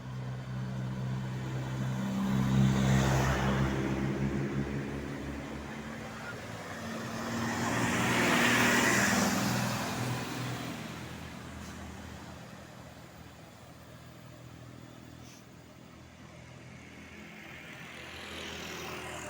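Road vehicles passing by one after another on a climb. The first goes by with a low engine drone about three seconds in, a second about nine seconds in, and another approaches near the end.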